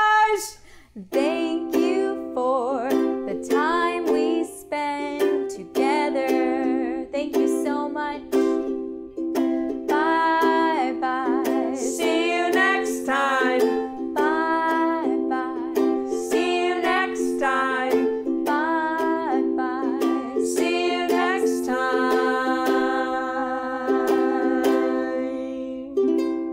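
A woman singing a song while strumming chords on a ukulele, starting about a second in.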